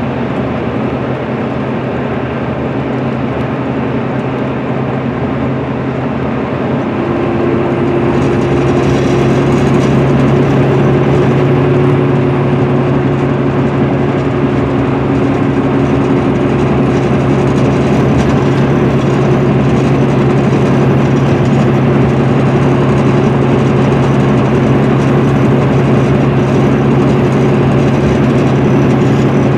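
Interior drone of an MCI D4500CL coach at highway speed: its Cummins ISM straight-six diesel and Allison automatic transmission running steadily under heavy tyre and road noise, heard from inside the cabin. The drone grows louder about seven seconds in, and a steady engine hum then holds.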